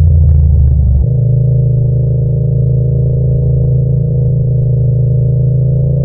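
Yamaha MT-07 parallel-twin engine and exhaust running at steady, moderate revs under the rider. The note shifts once about a second in and then holds level, with a few light clicks in the first second.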